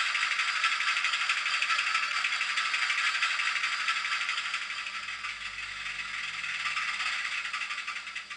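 ESU LokSound sound decoder in a model SNCF Y 6400 diesel shunter playing its engine-running sound through a tiny 16x25 mm loudspeaker: a thin, fast rattling chug with no bass, growing fainter over the last few seconds.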